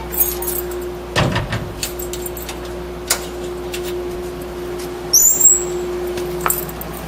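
A shop door being unlocked and opened: keys rattling, latch clicks, a heavy knock about a second in and a short high squeak around five seconds in, over a steady hum.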